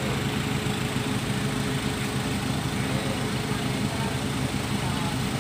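Engines running steadily on a ferry's vehicle deck: a low, even drone with a faint constant hum above it.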